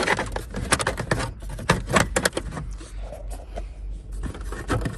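Irregular sharp plastic clicks, knocks and scrapes from unclipping a 1997 Chevy Tahoe's steering column trim cover by hand.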